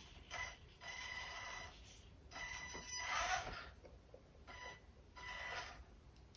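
Small electric motor and gears of a radio-controlled toy car whirring in short spurts of throttle, five bursts each lasting from about half a second to just over a second.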